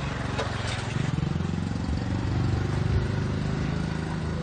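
Street traffic noise with a motor vehicle engine running close by, its engine note strongest in the middle.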